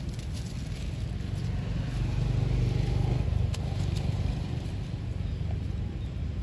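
A steady low rumble that swells and grows louder between about two and three and a half seconds in, then settles back.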